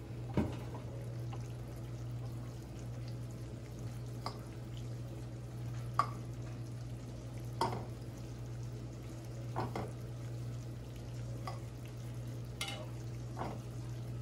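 A utensil stirring sesame seeds in a small frying pan, with scattered sharp taps and scrapes of the utensil against the pan over a steady low hum.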